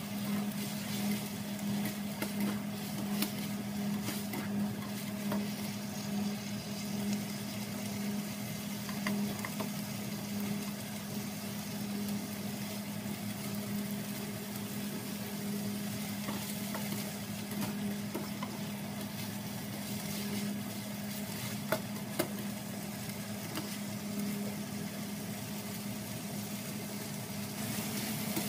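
Shrimp sizzling in hot oil in a nonstick frying pan while being stirred and turned with a spatula, with scattered scrapes and taps of the spatula on the pan, two sharper taps a little over two-thirds of the way in.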